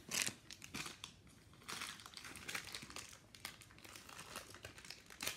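Packaging wrap crinkling and rustling in the hands as a small plastic model part is unwrapped, in irregular crackles, with a sharper click near the end.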